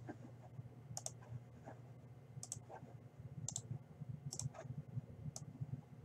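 Faint computer mouse clicks, about five or six at irregular spacing, over a low steady hum.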